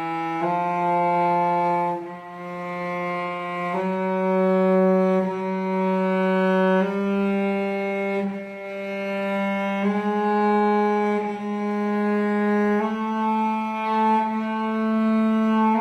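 Cello played with long, slow bow strokes, each note held about three seconds. The notes rise a semitone at a time in a left-hand exercise in which the second finger replaces the first to advance by half steps.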